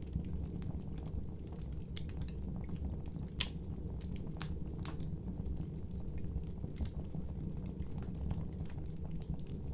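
Wood fire burning with a steady low rumble and scattered crackles and pops, the sharpest about three and a half seconds in.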